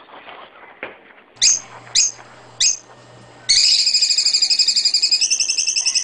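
White Asian house shrew calling in a bird-like way: three short, high chirps, then a loud, fast-pulsing trill. The trill repeats many notes rather than the single-note squeak shrews usually give.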